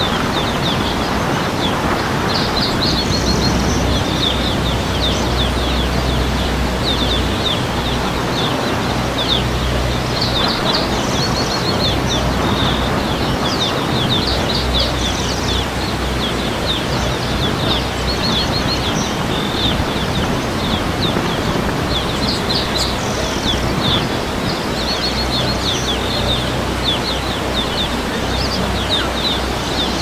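Steady rush of churning river water and waterfall spray, with a low boat-engine hum underneath. Birds chirp quickly and repeatedly over it in short runs.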